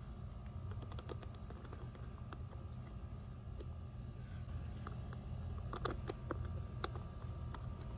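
Faint scattered clicks and light scrapes of bonnet screws being turned by hand into a plastic irrigation valve, with a small cluster of clicks about three-quarters of the way through, over a low steady rumble.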